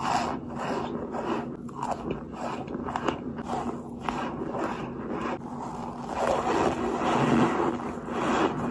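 Close-up eating of dry, crumbly white chunks: crisp crunches from biting, about two or three a second. They turn into denser, louder crunching and chewing about six seconds in.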